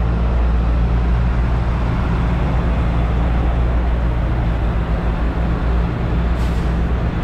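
Diesel engine of a tanker truck, a tractor unit pulling a tank semi-trailer, running steadily as the truck drives past and moves off. There is a short faint hiss about six and a half seconds in.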